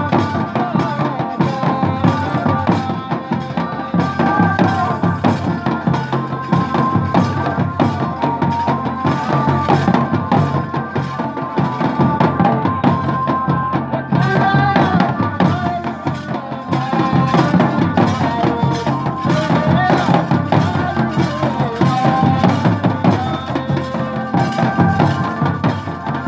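Hill folk music: drums beaten in a steady, quick rhythm with a melody line over them.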